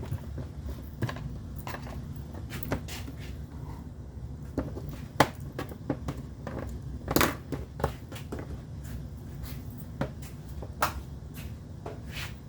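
Scattered clicks and knocks of small hard objects being handled, over a steady low hum.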